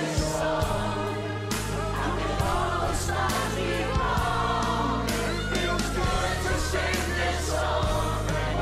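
Several voices singing together in chorus over a pop band backing with a steady bass line.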